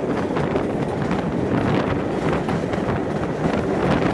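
Steady wind rush buffeting a microphone held out of a moving steam-hauled train's carriage window, over the rumble of the coaches running on the track.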